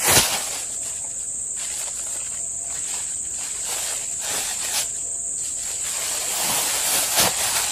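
Plastic carrier bag snapped open with a shake just after the start, then rustled a couple more times as it is handled, over a steady high-pitched drone of insects.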